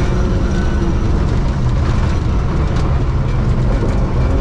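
Ford Escort Mexico rally car heard from inside the cabin, its engine running hard at a fairly steady pitch while it drives on gravel, under heavy road noise with a few sharp clicks.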